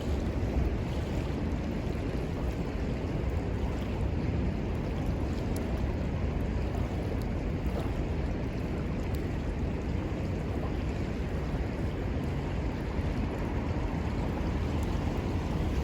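Steady rushing of a flowing river, with wind buffeting the microphone and a few faint crackles from a wood fire.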